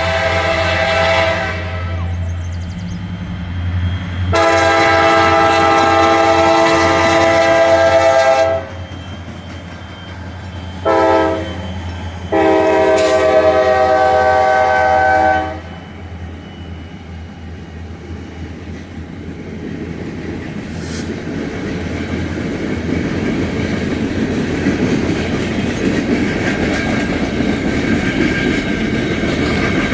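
Diesel freight locomotive's multi-chime air horn: a blast ends about a second in, then comes a long, a short and a long, the grade-crossing signal. After the horn, the rumble of the train rolling closer grows steadily louder.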